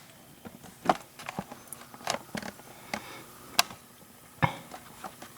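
Scattered small clicks and taps of a disassembled Corbin Russwin mortise lock cylinder and its pins being handled, about a dozen light ticks spread over a few seconds, with the sharpest near the middle.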